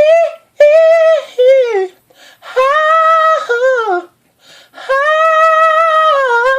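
A solo voice singing wordless, drawn-out high notes with vibrato, unaccompanied: four phrases, the second and third sliding down at their ends.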